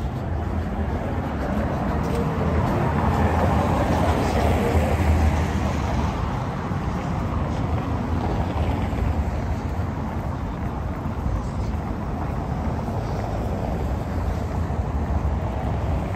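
Street traffic: cars driving over a wet cobblestone road, their tyre noise swelling as they pass, about four seconds in and again around nine seconds.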